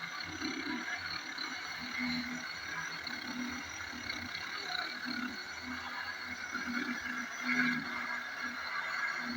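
Angle grinder running steadily, sanding and cleaning the surface of a carved wooden door.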